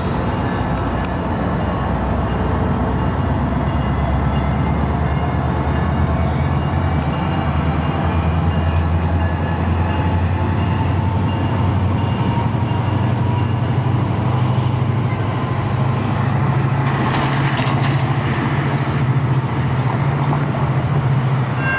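Diesel locomotive of a commuter train, a MotivePower MP32PH-Q, running with a steady low drone that grows stronger as the train draws closer. A short run of clattering knocks comes about seventeen seconds in.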